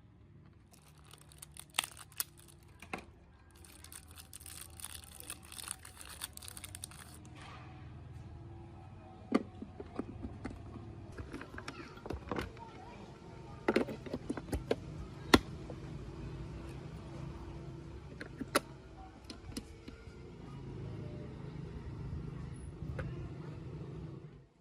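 A run of sharp clicks and knocks, with a stretch of dense crackle in the first seven seconds, over a steady low hum.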